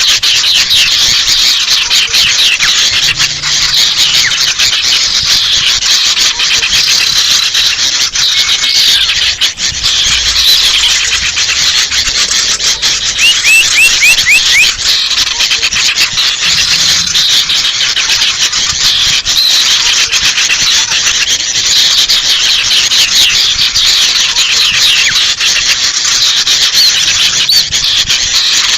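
Dense, unbroken chorus of small birds chattering and scolding, a bird-lure recording built from noisy sooty-headed bulbul (kutilang) calls mixed with agitated sirtu calls. A quick run of short chirps stands out about halfway through.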